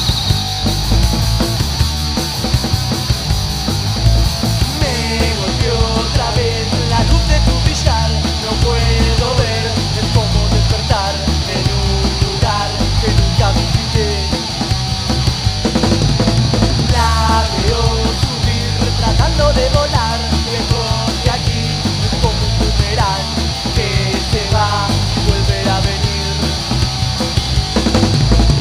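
Loud rock band music in a punk-rock vein, with drums, bass and guitars playing continuously.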